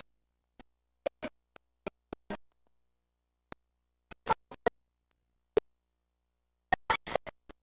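Videotape playback glitching: a string of sharp clicks and short chopped bursts of garbled sound, with dead silence between them, thickest about four seconds in and near the end.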